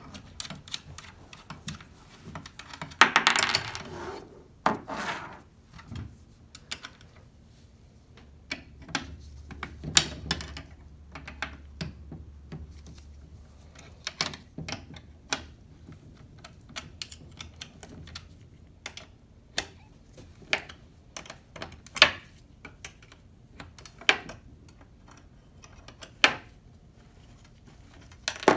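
Metal hand tools and parts of a John Deere section-control meter roller clicking and clinking while the roller's handle is being removed: scattered sharp knocks, with a longer rubbing scrape about three seconds in and another about five seconds in.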